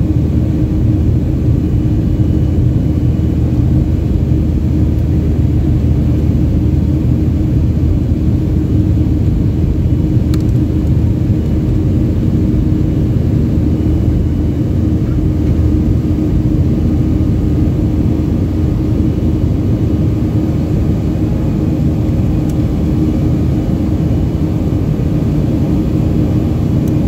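Steady roar inside a jet airliner's cabin in flight, engine and airflow noise heard from a window seat beside the engine, with a steady low hum running through it.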